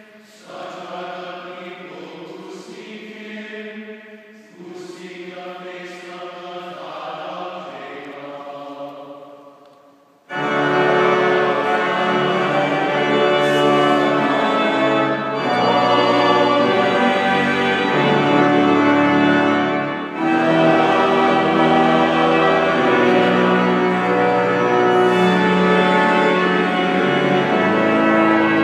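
A man's voice chanting alone, then, about ten seconds in, organ and singing voices start loudly and go on as a sustained hymn.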